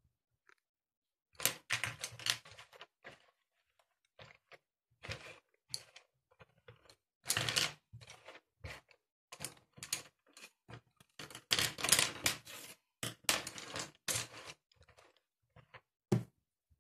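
Irregular clatter and rustling of household things being handled and put away, in short bursts of clicks and scraping with pauses between them.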